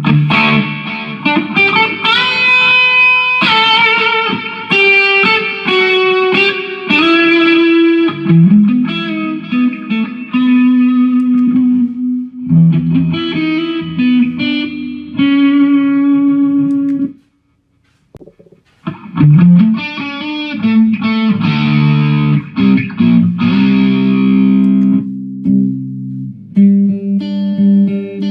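Jackson electric guitar played through a Mooer GE150 multi-effects unit: sustained single notes and chords with effects on the tone. The sound cuts out for about a second past the middle, then the playing starts again.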